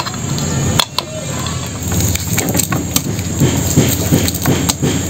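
Handling noises from a live crab being worked out of a wire crab trap with a stick and then tied up on wooden deck planks: scattered light clicks, scrapes and knocks over a steady background hiss.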